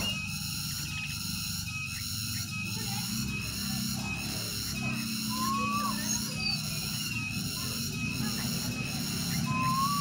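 Black-naped oriole giving two short fluty whistles, each rising and then dropping sharply, about four seconds apart. Behind them runs a steady, high, pulsing buzz.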